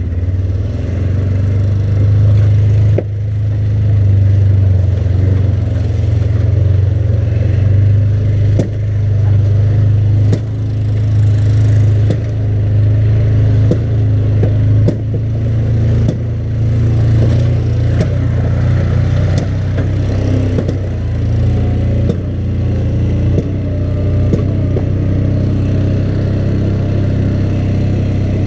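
ATV engine running steadily at trail speed, with scattered knocks and rattles along the way.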